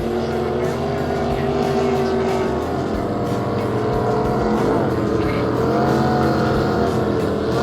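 Harley-Davidson V-twin motorcycle engine running at road speed. Its pitch dips and then rises again about two-thirds of the way through, as the throttle changes.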